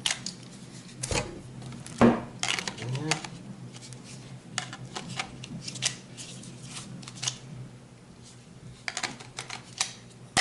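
Hard plastic clicks and knocks of cordless ratchets being handled while an M12 12-volt slide-in battery pack is pulled out of one tool and clicked into another. The loudest knock comes about two seconds in.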